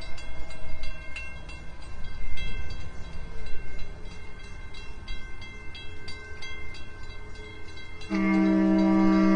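Car ferry's horn sounding one long steady blast, starting about eight seconds in. Before it there is a low rumble with scattered clicks.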